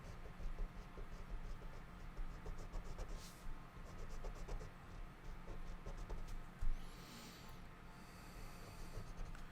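Faint scratching and light ticking of a stylus drawing on a graphics tablet, with a couple of brief swishes.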